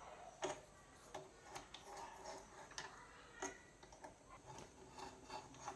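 Faint, irregular light clicks and taps, a few each second, over a quiet background.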